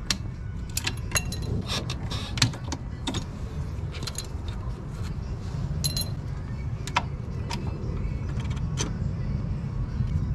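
Irregular metal clicks and clinks of pliers and hand tools on a rear drum brake's shoe springs and retaining hardware as the brake is taken apart, over a steady low rumble.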